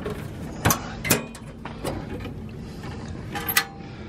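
Hand tools and a steel toolbox being handled: several sharp metal clanks and rattles, the loudest about three and a half seconds in with a brief metallic ring.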